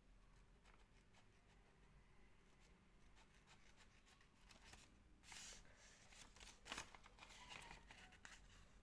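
Faint snipping of steel scissors cutting through paper, with small blade clicks. Louder snips come from about five to eight seconds in.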